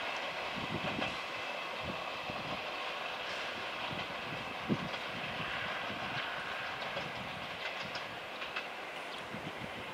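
Locomotive-hauled passenger train's coaches rolling away over the rails: a steady rumble of wheels on track with irregular wheel knocks, one sharper about five seconds in, slowly fading as the train moves off.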